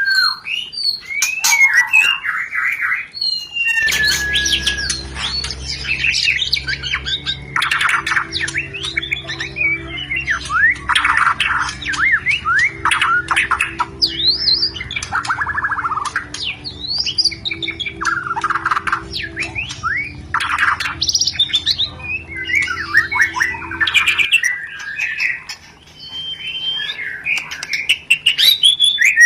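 White-rumped shama (murai batu) singing in breeding condition: a fast, unbroken stream of varied whistles, sliding notes, trills and harsh chattering calls. A steady low hum runs under the song from about four seconds in until shortly before the end.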